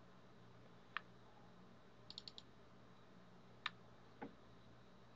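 Faint clicks of a computer mouse or keyboard over a quiet room with a low hum: a single click about a second in, a quick run of four near the middle, then two more single clicks near the end.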